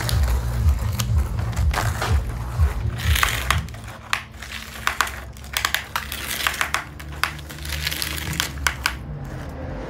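Plastic toy construction vehicles, an excavator and a dump truck, scraped and pushed through sandy, gritty dirt: irregular crunching scrapes and sharp clicks, with a low rumble over the first few seconds.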